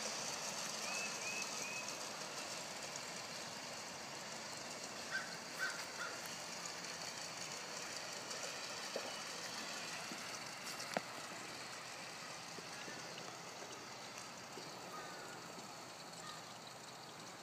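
Steady outdoor hiss that slowly fades, with a few short bird chirps near the start and a single sharp click about eleven seconds in.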